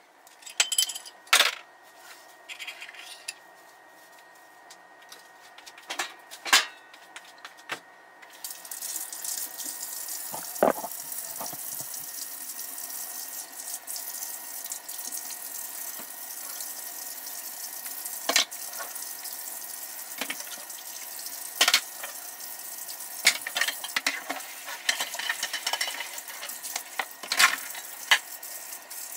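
Kitchen tap running into a sink while dishes are rinsed by hand, with sharp clinks and knocks of dishes and glassware. A few clinks come first, then the water starts about eight seconds in and runs steadily.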